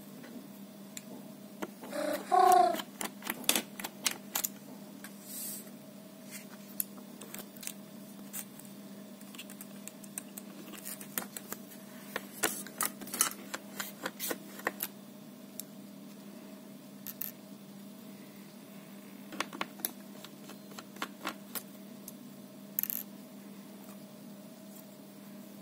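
Scattered clicks, taps and scrapes of a precision screwdriver and small plastic and metal parts being handled while a laptop display assembly is taken apart. A short squeak about two seconds in is the loudest sound, over a steady low hum.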